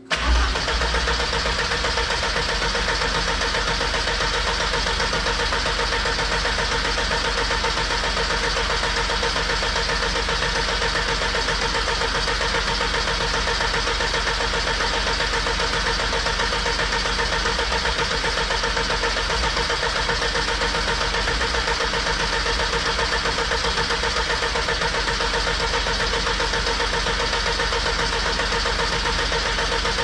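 Ford Escort RS Turbo's 1.6 CVH turbo four-cylinder engine being cranked over on the starter motor without catching. It starts abruptly and runs at a steady, unbroken level. The engine is not getting fuel, which the owner puts down to the intercooler pipes being off, so the fuel metering valve senses no air flow.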